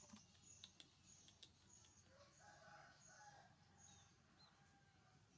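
Faint background bird calls: short high chirps repeating every half second or so, with a lower, longer call about two and a half seconds in.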